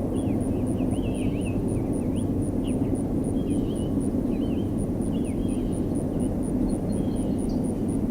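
Small birds chirping again and again over a steady low rumble, with a faint, even high-pitched ticking about four times a second.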